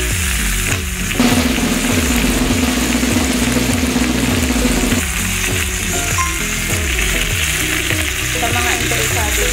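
Chicken pieces sizzling in their own rendered fat in a hot Saladmaster stainless electric skillet, with no oil added, while metal tongs turn them. The frying hiss is steady.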